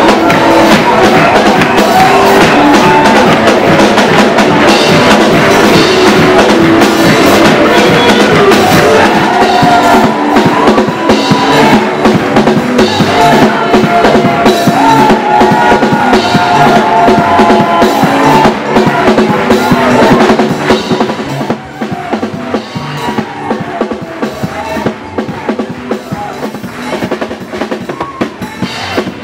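Live gospel praise band music driven by a drum kit, with pitched instruments or voices over it; it drops noticeably in level about two-thirds of the way through.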